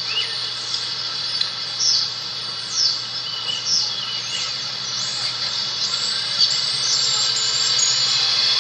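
Coal train drawing nearer: a steady high hiss builds slowly, with short high squeals or chirps about once a second.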